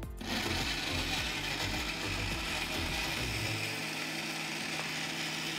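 Bajaj Splendora mixer grinder running, grinding boiled beetroot into a purée without water. The motor starts just after the opening, churns unevenly at first as it breaks the chunks, then settles into a steady hum about halfway through.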